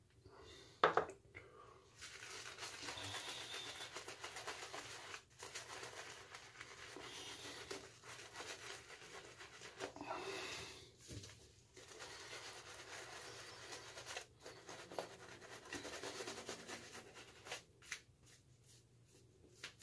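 Shaving brush with an Elite Razors knot swishing lather over the face: a soft hiss of bristles through thick shaving-soap lather, going on in stretches with short pauses between strokes, and a sharp knock about a second in.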